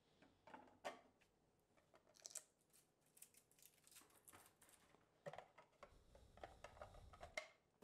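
Near silence with faint scattered clicks and taps of small plastic parts being handled, as the plastic Sea-Monkeys tank and its pink base are picked up and turned over. The taps come more often in the second half.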